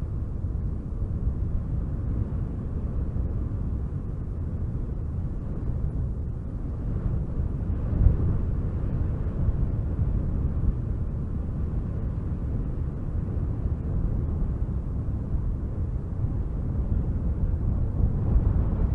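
Wind blowing in low, rumbling gusts, swelling about eight seconds in and again near the end.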